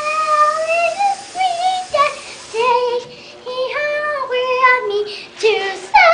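A young girl singing a song, one voice in held notes that slide from pitch to pitch, broken by short pauses between phrases.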